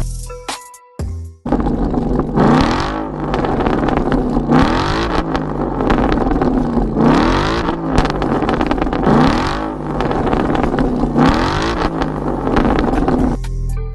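Ford Mustang GT 5.0 V8 with a RES cat-back exhaust being revved five times. Each rev rises and falls in pitch, about two seconds apart.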